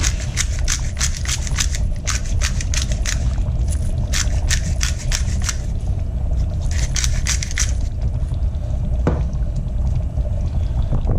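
Salt being added by hand to a steel pot of simmering stew: three runs of quick, crisp clicks and crackles, the last ending a little under eight seconds in. A steady low rumble sits under them, and a single knock falls about nine seconds in.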